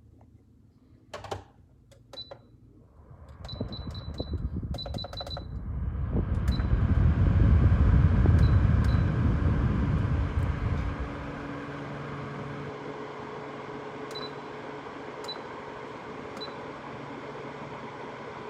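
Woozoo oscillating fan beeping as its buttons are pressed: a click, then short high beeps, some in quick runs. The fan starts up with a rising rush of air that grows loud, then drops about eleven seconds in to a steady, quieter running hum. Later, single beeps come as settings change.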